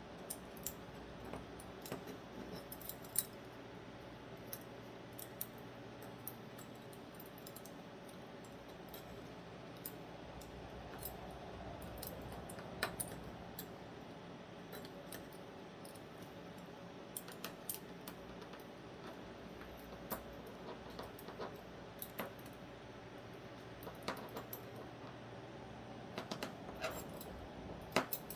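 Small metal parts of a crossbar-lock folding knife clicking and tapping as they are handled and fitted back together, while the crossbar and its spring are worked into place. Scattered light clicks, bunched in a few clusters, over a steady low hum.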